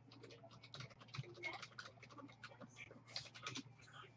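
Quiet typing on a computer keyboard: quick, irregular key clicks.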